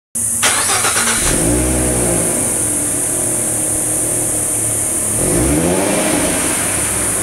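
2014 Ford Mustang's 3.7-litre V6 heard at the tailpipes through its stock exhaust. After a short rough burst in the first second, it idles and is revved up and back down twice, around two seconds in and again near the end.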